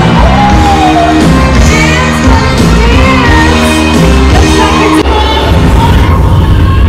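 Loud pop music with a sung vocal over a heavy bass line, playing for a live stage dance show; the song changes abruptly about five seconds in, leaving mostly the bass.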